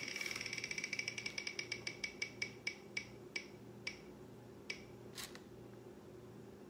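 Ticking of an on-screen prize wheel spinner played from a laptop: quick clicks, about ten a second, that slow and spread out as the wheel loses speed, the last ones half a second or more apart around five seconds in.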